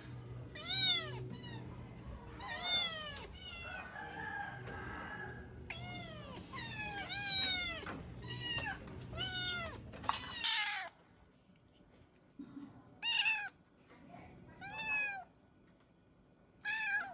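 Kittens meowing repeatedly in short, high, rising-and-falling cries, calling for their mother. A low background hum stops about two-thirds of the way through, and the later meows come more sparsely.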